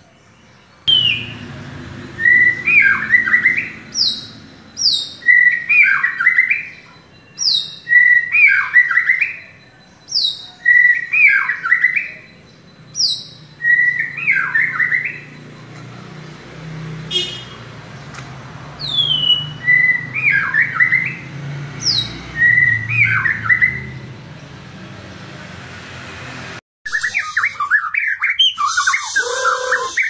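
White-rumped shama (murai batu) singing in a cage. It repeats the same short phrase, a high falling whistle followed by a lower warbled note, about every two to three seconds over a low background rumble. Near the end it breaks off into a busier, more varied song.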